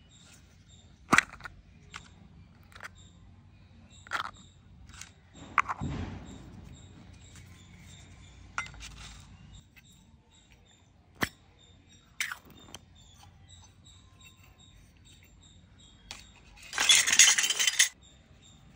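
Miniature toy kitchen pieces of plastic and stainless steel handled and set down: sharp clicks and clinks every few seconds, and a loud scraping rasp of about a second near the end.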